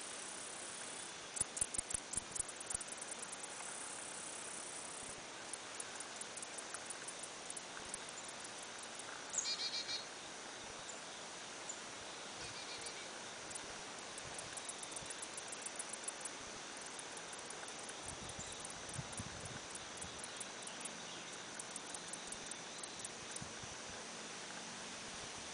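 Insects chirping: high-pitched, rapid trains of pulses that come in bursts every few seconds over a steady background hiss. A brief, higher call sounds about nine seconds in.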